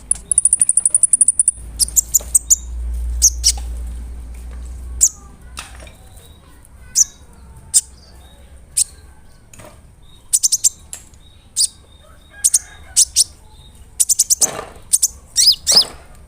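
Konin (kolibri ninja) sunbird singing: a fast, high trill near the start, then scattered sharp, high chirps, with a burst of loud chirps near the end.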